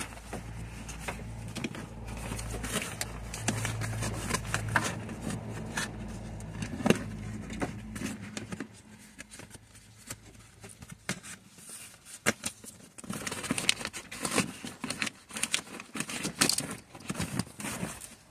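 Crackling, rustling and scraping of a car door's sound-deadening membrane being cut free of its adhesive with a sharp utility knife and peeled back, with scattered small clicks. A low steady hum runs under the first eight seconds or so, then stops.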